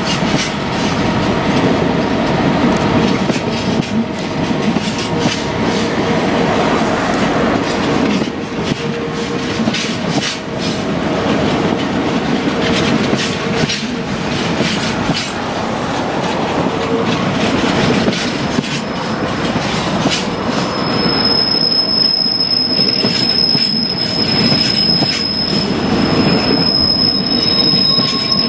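Long train of Freightliner coal hopper wagons rolling steadily past on a curve, wheels clacking over rail joints. About two-thirds of the way through, a thin high wheel squeal from the curve sets in and holds.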